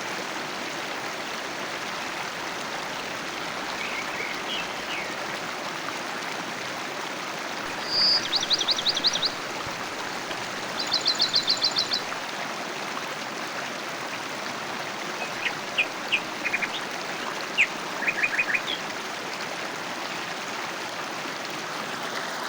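Clear river flowing with a steady trickling rush, and small birds chirping over it: two fast high trills about a third and a half of the way in, then scattered short chirps and a brief trill later on.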